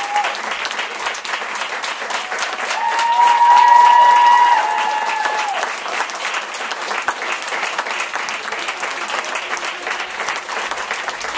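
Audience applauding steadily, with several voices cheering in long held whoops about three seconds in, when it is loudest.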